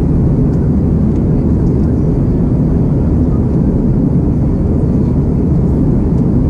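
Steady, loud cabin roar of an Airbus A330-200 in climb-out after take-off, heard from a window seat by the wing: jet engine and airflow noise, deep and unchanging.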